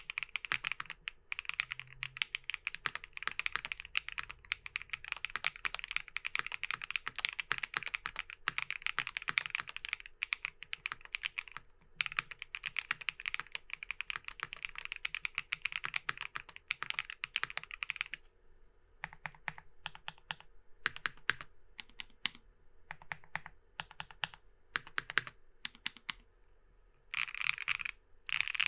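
Keygeek Y2 mechanical switches typing on a Nuxros Kraze 65% keyboard built with an aluminum plate. Fast continuous typing gives way, about two-thirds in, to slower separate keystrokes, then a short quick run of strokes near the end.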